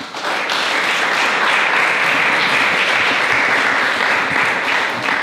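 Audience applauding, steady throughout and tapering off near the end.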